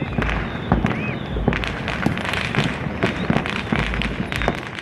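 Many distant New Year's fireworks and firecrackers going off across a city, in a dense, overlapping crackle of pops and bangs. A short whistle rises and falls about a second in.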